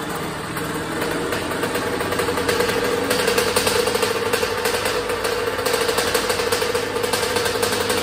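2001 Honda CR80's two-stroke single-cylinder engine running steadily just after being kick-started, with its fuel tap still turned off.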